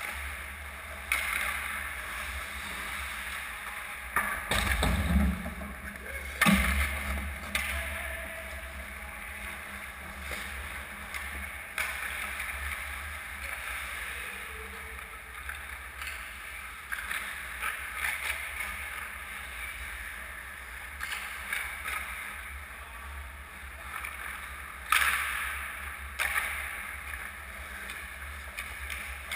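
Ice-rink play: skate blades scraping and carving on the ice, with irregular sharp knocks of sticks and pucks, over a steady low rumble. The loudest knocks come around five seconds in and again near the end.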